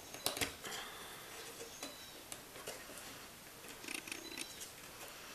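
Light clicks and taps of small wooden kit pieces being handled as a wheel and spacer ring are pushed onto a dowel axle, with a couple of sharper clicks in the first half second and scattered soft taps after.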